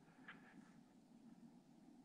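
Near silence: a faint steady background hiss with one small, faint click about a third of a second in.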